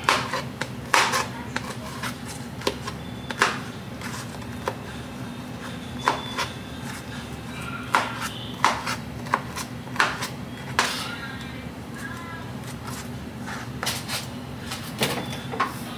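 Kitchen knife cutting through pineapple onto a cutting board: irregular sharp knocks of the blade on the board, some in quick pairs, over a low steady hum.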